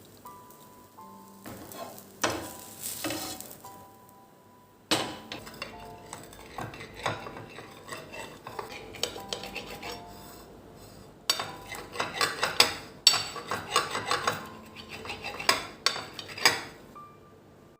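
Pots, dishes and cutlery clinking and knocking during kitchen work. There are a few knocks about two to three seconds in, then a dense clatter from about five seconds in, loudest between twelve and sixteen seconds.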